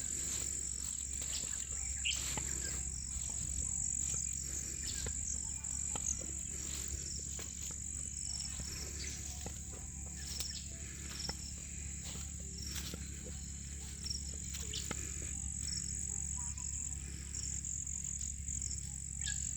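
Steady high-pitched insect chorus in a field, with short faint chirps and scattered clicks over a constant low rumble.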